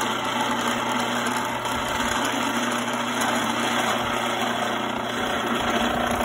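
Electric grain mill with metal grinding discs running with a steady hum while its adjusting screw is turned to close the gap between the discs.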